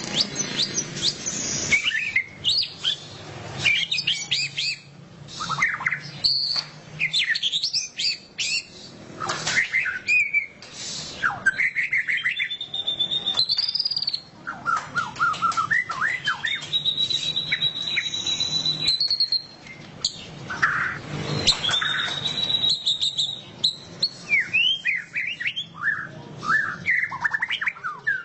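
White-rumped shama (murai batu) singing loudly in the 'ngeriwik' style: a dense, varied run of quick sweeping chirps and trills, broken three times by long held whistles.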